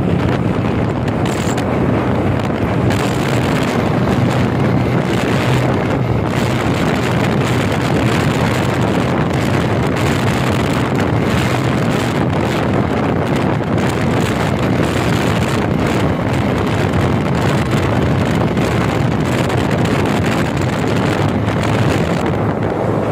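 Bajaj motorcycle riding at around 70 km/h, its engine humming steadily under loud wind buffeting on the microphone.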